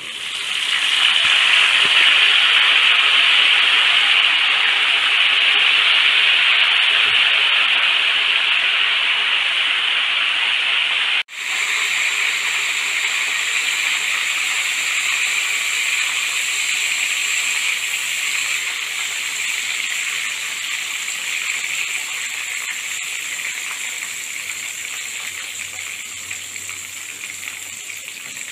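Raw nendran banana slices deep-frying in hot coconut oil, spluttering with a loud steady hiss after turmeric-and-salt water is added to the oil. The hiss slowly dies down as the water cooks off, and it is the spluttering whose end shows the chips are ready to come out.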